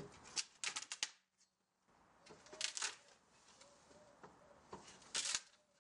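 A wooden pallet being broken apart with a steel demolition bar: three short bursts of cracking, splintering wood as boards are levered off.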